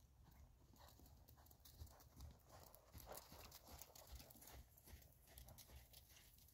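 Faint hoofbeats of a ridden horse moving over soft arena sand, slightly louder around the middle as it passes close by.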